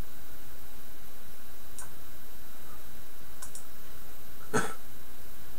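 Computer mouse clicks: four short, sharp clicks spread over a few seconds, the last, about four and a half seconds in, the loudest. A steady low hum runs underneath.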